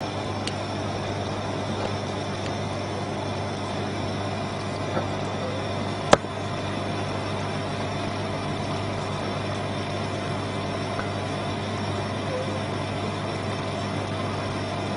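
A steady low hum with a hiss over it, and one sharp click about six seconds in.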